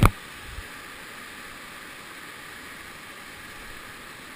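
Rushing whitewater of a river rapid, a steady hiss. A sharp knock at the very start and a soft low thump about half a second in.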